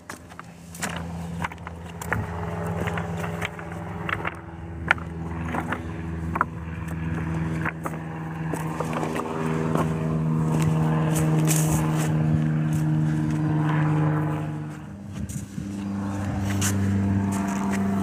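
A motor drones at a steady pitch, growing louder over the first ten seconds, then dips and comes back at a slightly different pitch. Footsteps crunch on beach pebbles in the first few seconds.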